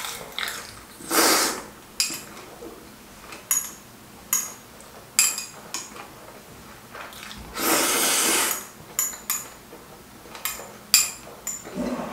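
Slurping of bibim-myeon noodles, two long slurps about a second in and near eight seconds, with chewing and the sharp clicks of metal chopsticks against a small ceramic bowl.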